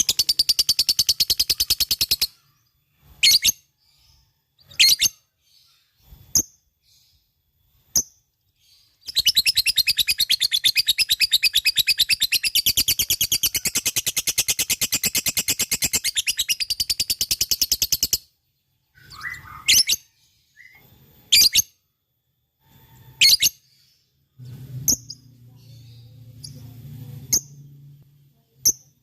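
Lovebird singing its long, rapid chattering trill (the 'ngekek' song prized in contest birds), one run of about two seconds at the start and a longer one of about nine seconds in the middle, with single short chirps in the gaps. A faint low hum comes in near the end.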